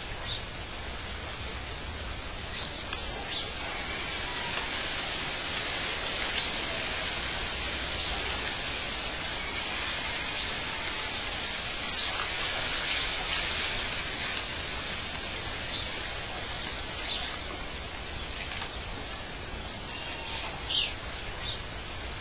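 Outdoor ambience: a steady, even hiss with a few short bird chirps, most of them near the start and near the end.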